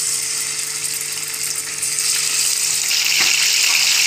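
Raw chicken pieces sizzling as they are dropped into hot oil in a frying pan. The sizzle grows louder about two seconds in and again about three seconds in as more pieces go in.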